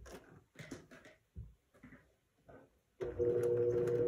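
A few soft rustles and taps of fabric being positioned under the presser foot, then about three seconds in a domestic sewing machine starts and runs steadily with an even motor whine, stitching a seam.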